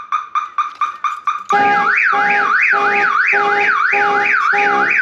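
Viper 5903V car alarm set off by the door being opened. Its siren beeps rapidly, then about a second and a half in switches to a fast up-and-down wail. The car's horn joins, honking in even pulses a little over half a second apart; the whole thing is loud.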